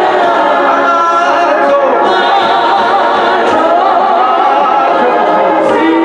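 Church congregation singing together, many voices at once in a loud, steady swell.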